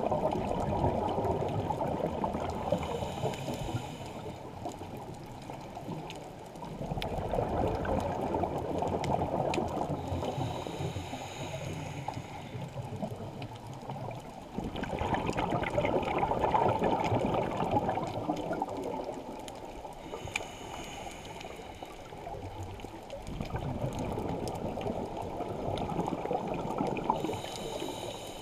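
Scuba regulator breathing underwater: four long bubbling rushes of exhaled air, about eight seconds apart, with a brief thin hiss between them.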